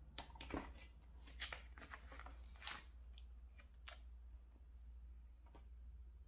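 Faint, short scratchy rustles of paper stickers being handled, peeled and pressed down by fingers onto a paper planner page, coming in quick clusters during the first four seconds and a few more near the end.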